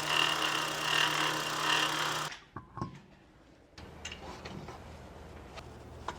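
Toyota Voxy engine running with an abnormal mechanical noise: a loud steady whirring with a low hum that cuts off suddenly after about two seconds. A couple of knocks follow, then a quieter steady low hum with a few faint ticks.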